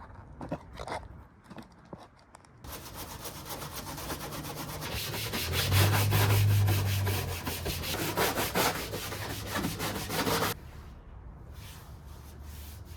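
Stiff scrubbing brush worked rapidly back and forth over the unpainted plastic body cladding of an Isuzu VehiCROSS, mostly dry, starting about three seconds in and stopping abruptly near the end. A low hum sounds along with it in the middle.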